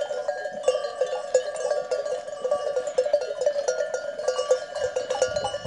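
Many bells on a grazing flock of sheep and goats clanking continuously and irregularly, lots of small bell strikes overlapping into a steady jangle.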